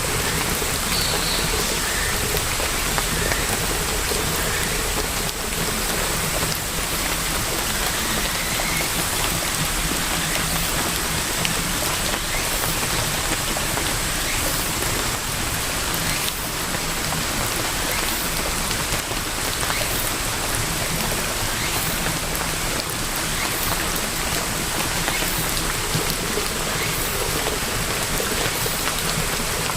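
Steady rainfall, a constant hiss with individual drops ticking throughout.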